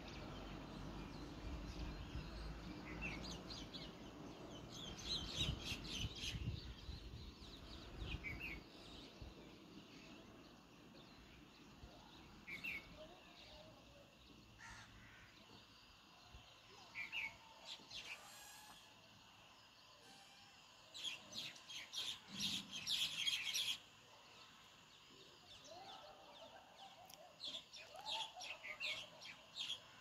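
Sparrows chirping in scattered bursts of quick, high chirps; the longest and loudest burst comes about two-thirds of the way through. A low rumble sits under the first few seconds.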